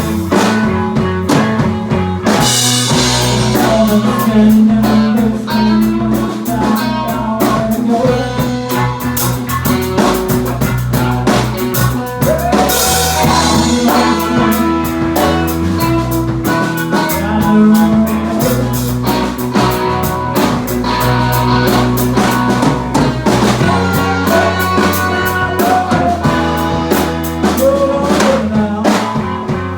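Band playing a blues-rock jam on drum kit, bass and electric guitar, with a steady beat.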